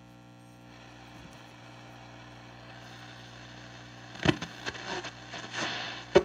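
Telefunken Concertino 7 tube radio on the shortwave band with its volume turned up. A steady hum sits under static hiss that grows louder, with crackles from about four seconds in and one sharp crack near the end.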